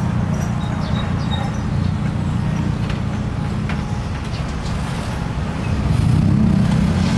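Steady low rumble of road traffic, swelling about six seconds in.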